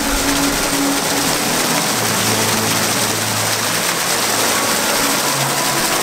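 Water fountain pouring a steady stream from a large horn-shaped cup and splashing into a pool below, a constant, even rushing.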